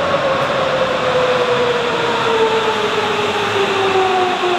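Sapporo Municipal Subway Tozai Line 8000 series train pulling into the station. Its IGBT-VVVF inverter whine falls steadily in pitch as the train brakes, over the rumble of the moving train.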